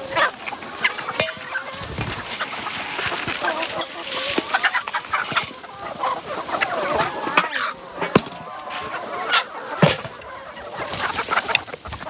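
A flock of chickens clucking, many birds calling over one another at feeding time, with a few sharp clicks among the calls.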